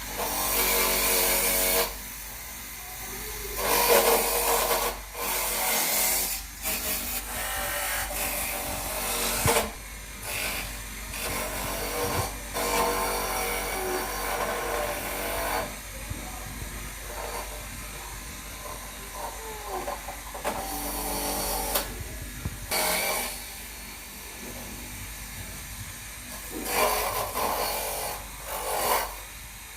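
Electric coconut grater running and grating coconut, its noise rising and falling in uneven bursts.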